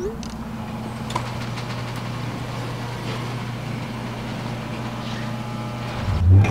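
A vehicle engine idling with a steady low hum, and a deep low boom swelling in near the end.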